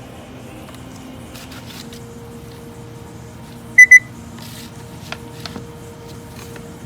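Sharp SPC585 alarm clock's electronic beeper giving a double beep: two short, loud, high-pitched beeps in quick succession about halfway through, followed by a few faint clicks.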